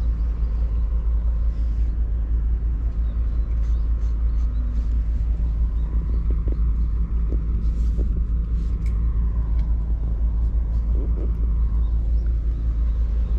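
Steady low wind rumble buffeting the microphone, with a few faint light clicks.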